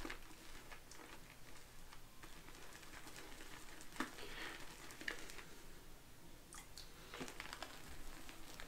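Faint handling of shaving gear: a few small clicks and soft squishy, rustling sounds as the shaving soap and its tub are worked.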